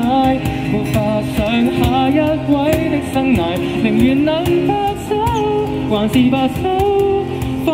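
Live acoustic pop performance: a male voice singing a melody through a microphone and small amplifier, over strummed acoustic guitar and a steady cajón beat.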